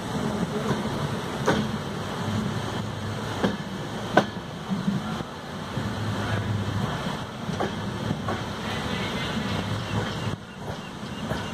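Indian Railways passenger train in motion, heard from an open coach window: a steady low rumble of the running gear with sharp, unevenly spaced clicks of the wheels over the rail joints, the loudest about four seconds in.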